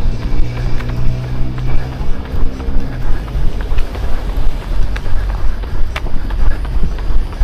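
Running footsteps, a regular thudding about three times a second, with wind buffeting the microphone. A motor's steady hum sounds under them and fades out about three seconds in.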